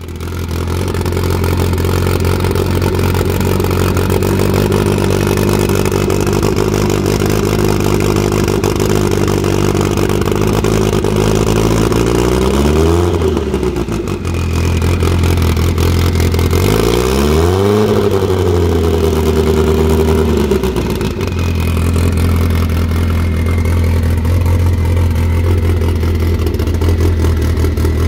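Modified turbocharged car engine idling steadily, blipped twice to higher revs about halfway through, each rev rising and falling back to idle within a second or two.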